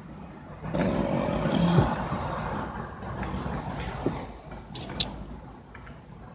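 Vehicle noise: a rushing sound that swells about a second in and slowly fades, with a sharp click about five seconds in.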